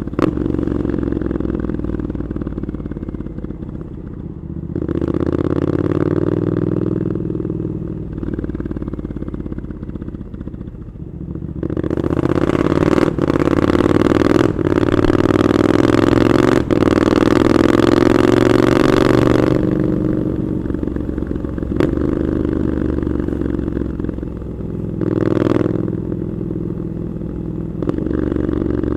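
Triumph Scrambler 900's parallel-twin engine through an Arrow exhaust, heard from the rider's seat. It pulls briefly about five seconds in, then makes a longer, louder acceleration from about twelve seconds with rising pitch broken by three quick gear changes, and eases off near twenty seconds. There is a short throttle blip near the end.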